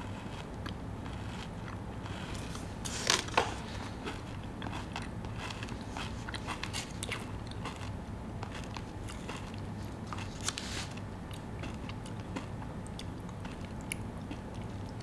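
Close-up chewing of a kunafa-and-pistachio-cream filled chocolate bar, with small crisp crackles from the shredded pastry filling. The loudest crunches come about three seconds in, with another around ten seconds in.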